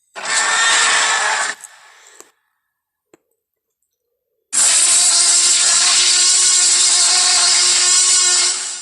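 Two loud, harsh Tyrannosaurus rex roar sound effects: a short one of about a second and a half, then after a pause a longer, steady one of about four seconds that fades out at the end.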